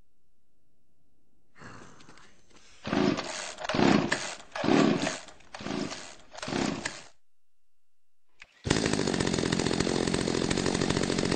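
Five loud, short, uneven bursts, then a Stihl chainsaw engine starting abruptly and running steadily at a high level.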